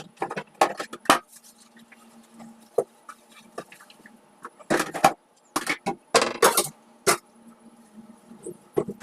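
Irregular knocks, clinks and clatter of dishes and utensils being handled, loudest in two bunches in the middle, over a faint steady low hum.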